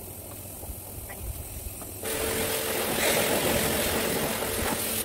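Electric pressure washer running and spraying: a steady loud hiss with a motor hum starts about two seconds in and cuts off suddenly near the end, as the trigger is pulled and released.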